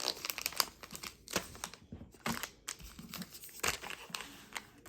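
Plastic wrapping of a trading card pack being crinkled and torn open, with irregular crackles throughout.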